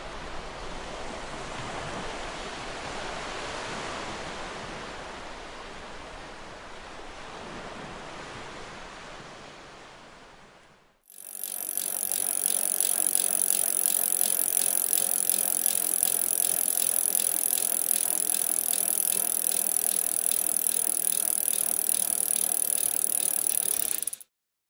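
A wash of surf-like noise that fades away over about ten seconds. After a brief gap it gives way to a louder, steady mechanical whirring with a fast rattling tick and a bright hiss, which cuts off suddenly near the end.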